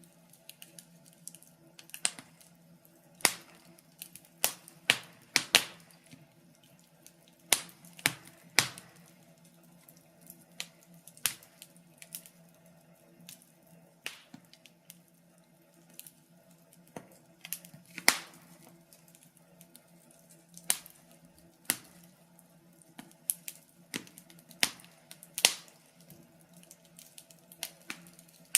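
Wood fire crackling in a fireplace: irregular sharp pops and snaps, a few every couple of seconds, over a faint steady low hum.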